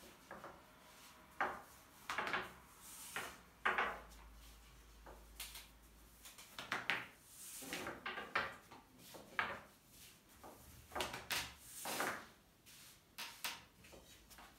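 Long, thin wooden rolling pin (oklava) rolling yufka dough thin on a glass tabletop: irregular wooden knocks and clatters as the pin is set down, lifted and rolled, with rubbing and scraping between.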